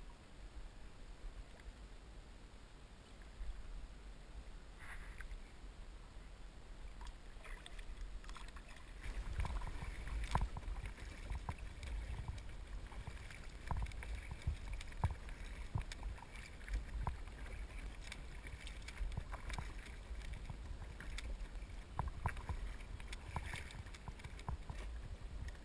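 Kayak paddling: a double-bladed paddle dipping and splashing in lake water, with scattered clicks and drips over a low rumble, getting busier about nine seconds in.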